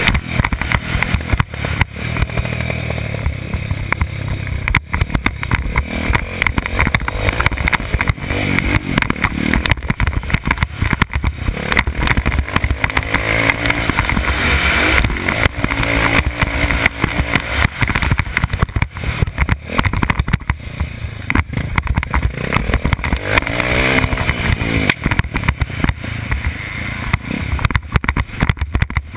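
Dirt bike engine running hard on a motocross track, its pitch repeatedly rising and falling as the throttle is opened and closed through the gears, under constant noise and clatter from the ride.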